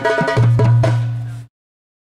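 Fast live drum rhythm with dense, rapid strokes over a steady low sustained tone; the music cuts off abruptly about one and a half seconds in, leaving silence.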